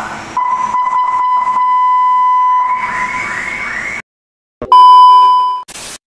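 Senken electronic car siren, set to about a quarter volume, sounding a steady high tone and then switching to a rising, stepping tone. It cuts off abruptly about four seconds in. Then comes a loud, steady beep, the loudest sound here, and a burst of static hiss near the end.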